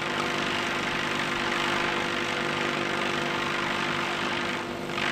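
Multirotor drone's propellers buzzing steadily as it hovers, a hum of several fixed pitches over a hiss.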